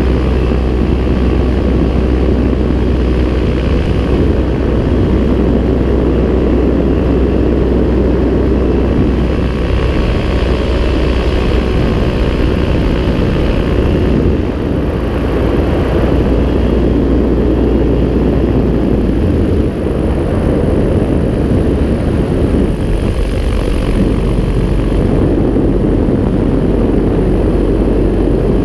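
Paramotor engine and propeller running steadily in flight, loud and close, with wind noise on the microphone; the level dips briefly about twenty seconds in.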